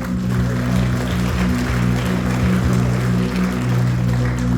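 A congregation clapping as a worship song ends, over held keyboard chords that keep sounding underneath.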